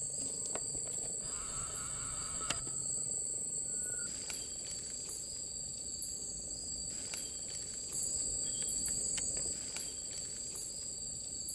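Steady high-pitched chorus of rainforest insects, two continuous tones, with a few faint clicks.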